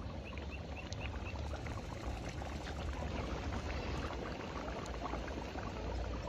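Meat-and-carrot broth for pilaf boiling hard in a cast-iron kazan over a wood fire: a steady bubbling hiss with many small pops, over a low rumble.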